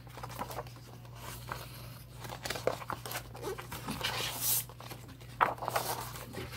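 Rustling and crinkling handling noise, with scattered light clicks and scrapes as things are moved about, over a steady low hum.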